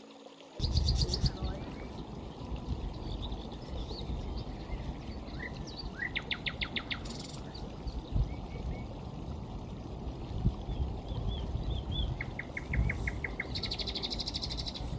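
Stream water flowing steadily, with birds singing quick trills of repeated notes over it several times. The water sound comes in abruptly about half a second in.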